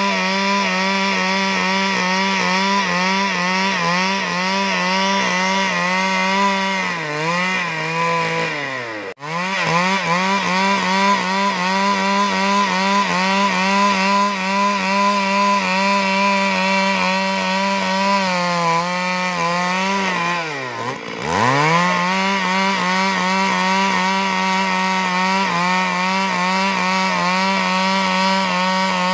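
Stihl 382 two-stroke chainsaw running at high revs as it rips a plank lengthwise, its pitch wavering under the load of the cut. The engine speed drops sharply twice, about nine seconds in and again about twenty-one seconds in, then climbs straight back up.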